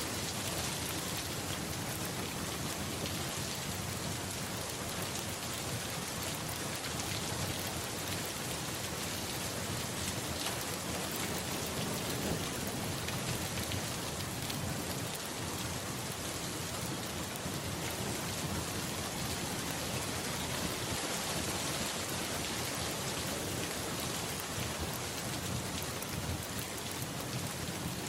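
Steady rain falling, with a low rumble of distant thunder underneath.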